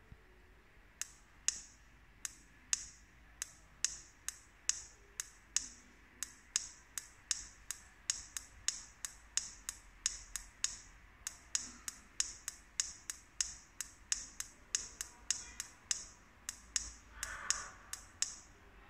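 Buttons on a small remote control being clicked over and over, about two to three sharp clicks a second, each stepping the LED numbers of an advent calendar candle on one day at a time.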